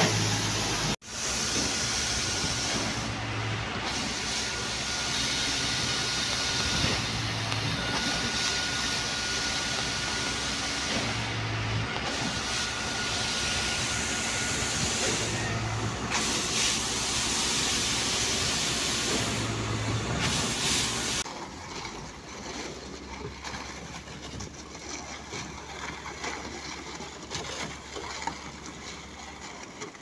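Truck-mounted concrete boom pump running, with a steady engine drone and a hiss plus a low thump repeating about every four seconds as it pumps concrete. About two-thirds through, the sound changes to a quieter, uneven background.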